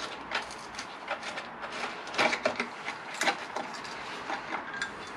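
Hand tool working on the nuts under a motorcycle's rear fender bracket: irregular metallic clicks and clinks, louder for a moment about two to three seconds in.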